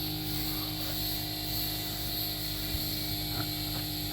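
A machine running steadily at an even pitch: a constant mechanical drone that holds its tone throughout.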